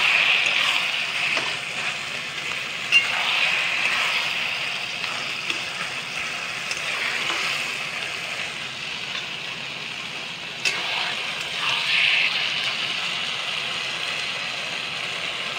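Boiled taro leaves sizzling in hot oil in a kadai while a metal spatula stirs them. The sizzle swells and fades with the stirring, and the spatula knocks sharply against the pan a couple of times.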